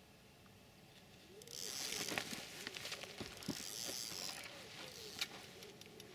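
Close rustling of fabric and handling noises, with scattered sharp clicks, as a person moves right up to the microphone. It starts about a second and a half in, is loudest in two spells, and dies down before the end.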